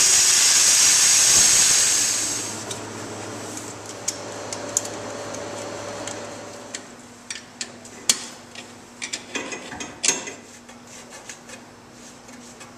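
A handheld corded rotary tool runs with a loud high hiss for about two seconds, then stops. After that come scattered light clicks and knocks as PVC drain pipe and fittings are handled and pushed together.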